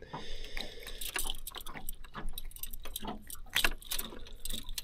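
Metal clip fish stringer clinking and rattling in irregular light clicks as a crappie is clipped onto it.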